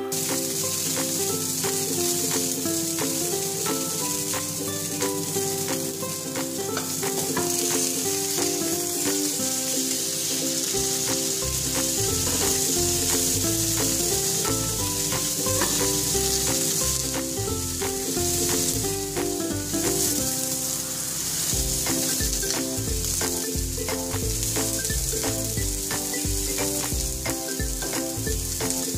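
Cod fillet sizzling steadily as it pan-fries in hot oil in a non-stick frying pan, over background music whose beat comes in about a third of the way through.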